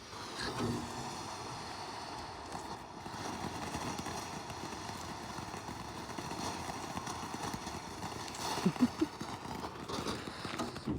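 A small consumer firework burning with a steady crackling hiss, with a few louder pops about three-quarters of the way through.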